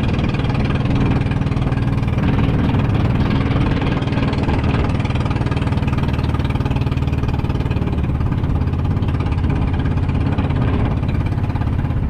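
Small boat engine running steadily at a constant speed, a low, even drone with a knocking beat.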